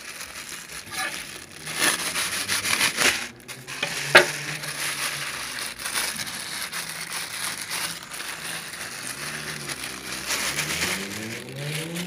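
Thin plastic bags crinkling and rustling as raw meats are unwrapped and handled, with a single sharp knock about four seconds in.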